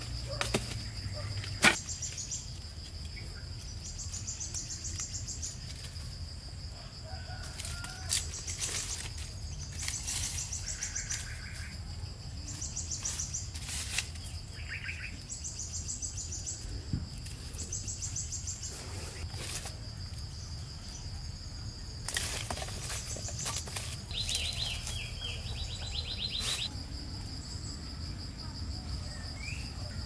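Rainforest insects holding a steady high-pitched drone, with repeated bursts of rapid pulsing chirps. Occasional knocks and clatters of sticks of firewood being handled and laid down; the loudest comes about two seconds in.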